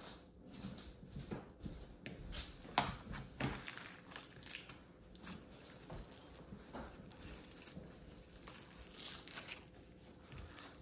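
Fluffy, cotton-textured blue slime being stretched, pulled apart and pressed by hand, giving an irregular run of soft crackles and tearing sounds, with a sharper crackle about three seconds in.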